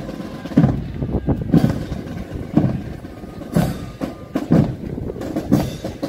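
Footsteps of a person walking on paved ground, heavy thuds about once a second with lighter ones in between, over a steady outdoor background.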